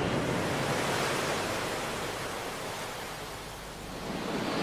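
Sea surf washing on a beach: an even rushing noise that is louder for the first second or two, then dies down.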